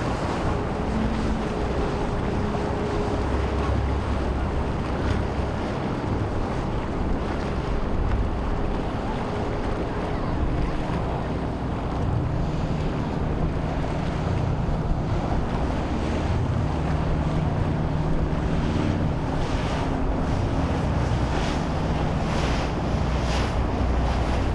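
Wind buffeting the microphone over the wash of waves and a boat wake, with the low, steady drone of a passing motor yacht's engines underneath. Near the end there is a run of sharper splashes.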